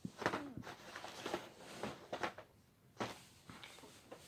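Carded action-figure packages being handled: a run of irregular plastic-and-cardboard clicks and crinkles.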